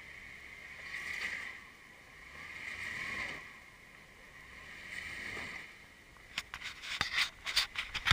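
Jeep Wrangler JK's engine revving in three swells about two seconds apart as it crawls up a rock step. From about six seconds in, a run of sharp clicks and knocks, louder than the engine.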